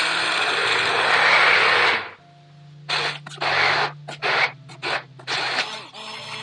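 Electric blender running for about two seconds, cutting off, then run again in about five short bursts, puréeing cooked tomato, onion and cashew masala into a smooth sauce.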